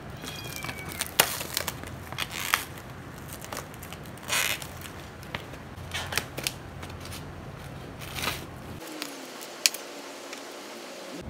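Irregular sharp clicks and crackles of a foam food tray and its plastic wrapping being handled.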